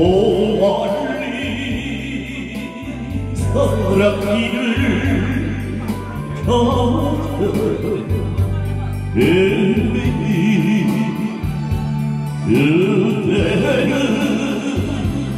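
A man singing a Korean song into a handheld microphone through a PA, over an amplified backing track. His voice comes in five sung phrases, a new one starting about every three seconds.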